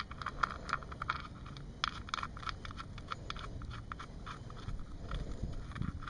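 Magnetic drain plug being threaded back into a Yamaha V-Max engine by hand, with a new crush washer: a run of light, irregular clicks and scrapes, thickest in the first couple of seconds.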